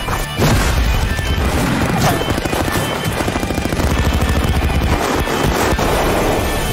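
Rapid automatic gunfire over dramatic trailer music.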